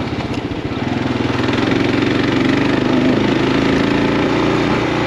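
Kawasaki KLR650's single-cylinder four-stroke engine running while the bike is ridden. It chugs in even pulses at first, then picks up about a second in and holds a steady note.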